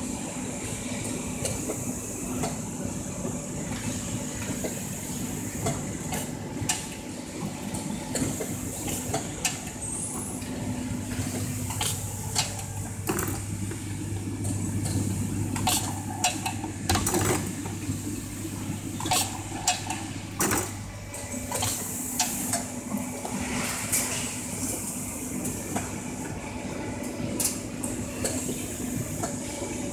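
Automatic cable tie machine at work in a factory, with sharp clicks from the tie gun firing and metal parts being handled, over a steady machine hum. A deeper hum grows louder for several seconds in the middle, then drops back.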